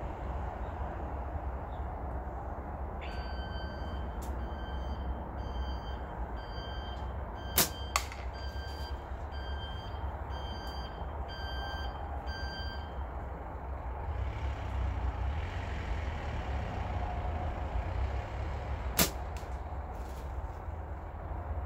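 Steady low outdoor rumble with a repeating electronic beep, like a truck's reversing alarm, from about three seconds in until about the middle. Sharp snaps stand out twice close together near the middle and once near the end, while the flat rubber band is being worked onto the slingshot.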